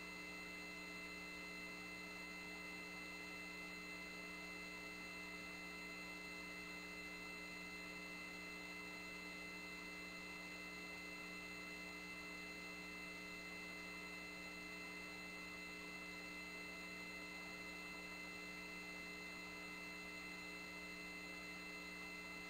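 Faint, steady electrical hum with several thin, unchanging tones: line noise on an open mission-control audio loop while no one is talking.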